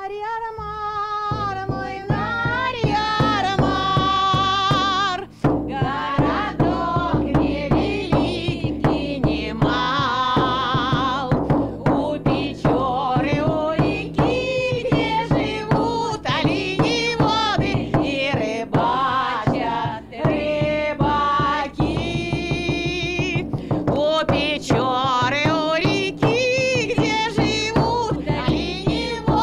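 A woman sings a lively song with a drum beat behind her voice. She opens on a long held note, and the beat comes in about a second later.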